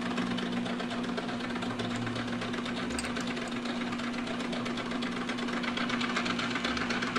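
Manrod MR 301 bench lathe running steadily, its motor giving a constant hum with a fine, even mechanical rattle over it.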